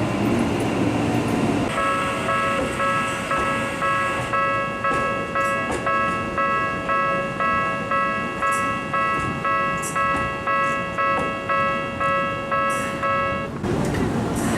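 Japanese railway level-crossing warning bells ringing with a clanging electronic tone, about two strikes a second, warning of an approaching train. A second crossing bell of slightly different pitch joins about four seconds in, and both stop shortly before the end.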